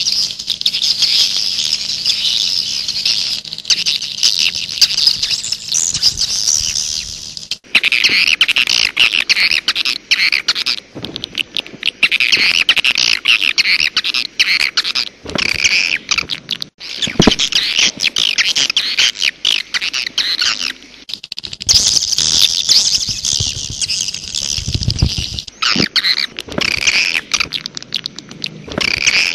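Dense, rapid, high-pitched twittering and chirping of birds, played as a bird-calling lure recording, with abrupt cuts about 8 and 21 seconds in where the call sequence changes.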